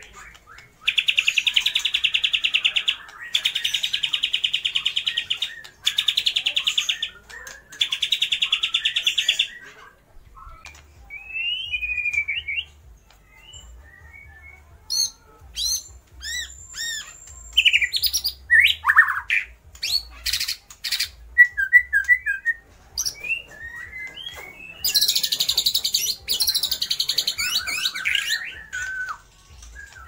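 White-rumped shama singing, with imitations of other birds' calls (lovebird, kapas tembak and spiderhunter): four long, fast, buzzy trills in the first ten seconds, then short whistles, slurred notes and chirps, and another dense trill near the end.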